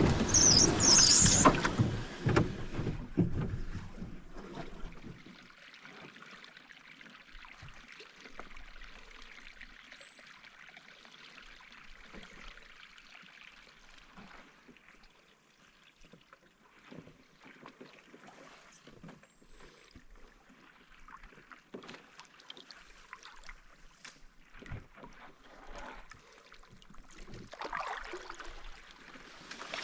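Canoe being paddled along a calm river: quiet paddle strokes and dripping water with small knocks of the paddle. A louder stretch with a sharp high squeak in the first couple of seconds, and the paddling grows a little louder near the end.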